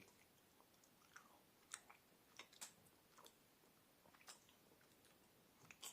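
Faint chewing of Sour Patch Kids gummy sweets: scattered soft mouth clicks and smacks.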